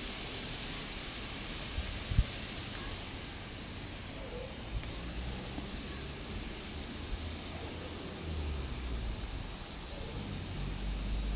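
Outdoor background: a steady high hiss over a low rumble, with a single low thump about two seconds in and the rumble growing near the end.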